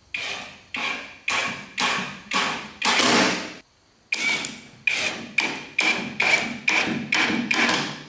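Hitachi cordless impact driver running screws into a wooden bed frame in short trigger pulses. First comes a run of six bursts, the last one longer, then a brief pause about three and a half seconds in, then about nine quicker bursts.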